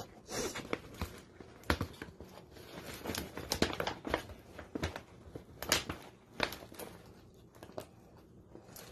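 Paper rustling and crinkling in short, irregular bursts as a paper gift bag and its wrapping are handled.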